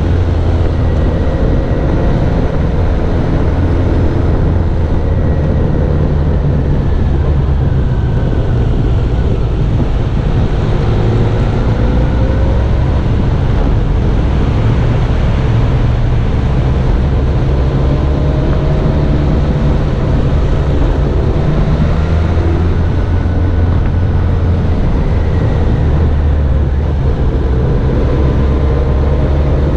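Motorcycle engine running at road speed on a mountain climb, with a heavy low rumble and a pitch that rises and falls with the throttle.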